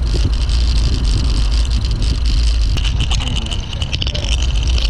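Wind rumbling on the microphone of a camera riding on a moving road bike, a steady low roar with tyre and road noise under it.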